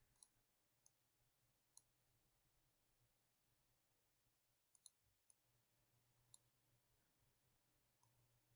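Near silence broken by about eight faint, scattered computer mouse clicks, two of them close together about halfway through.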